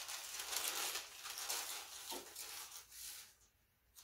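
Sheets of paper around a comic book rubbing and rustling as it is slid into place on a heat press platen by hand; the rustling dies away about three seconds in, with a faint click near the end.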